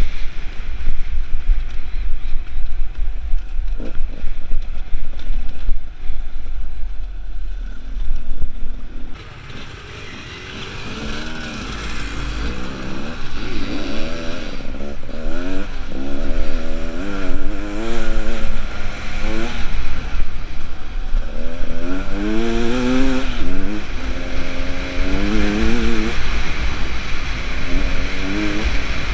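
Beta Xtrainer 300 two-stroke enduro bike engine under a rider's throttle, its pitch rising and falling again and again as it revs up and backs off. For about the first nine seconds heavy wind rumble on the microphone buries the engine.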